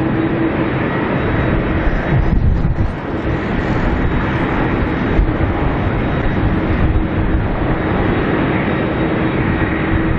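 Jet engine noise of a landing Boeing 777: a steady, loud rumble with a faint steady hum.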